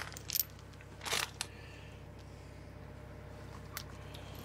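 Steel lifting chain and hook clinking and jangling a few times as they are handled, the longest jingle about a second in, over the steady low hum of an idling excavator engine.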